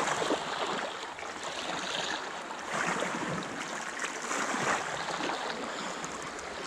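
Sea water washing and sloshing against shoreline rocks, a steady rushing with small surges.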